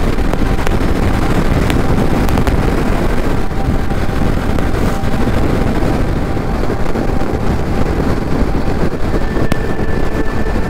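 Wind rushing over the microphone, with a KTM Duke 390's single-cylinder engine running at highway speed as the bike eases off from about 130 km/h. A steady tone comes through near the end.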